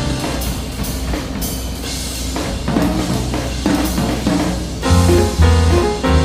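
Background music: a jazzy instrumental with drum kit and piano.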